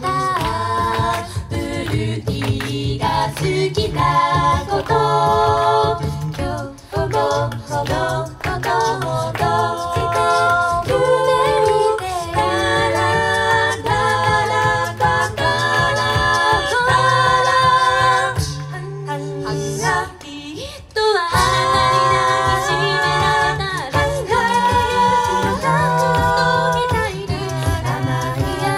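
Mixed-voice a cappella group singing live into microphones: close harmonies over a sung bass line, with a steady percussive beat. The voices thin out briefly about two-thirds of the way through, then come back in full.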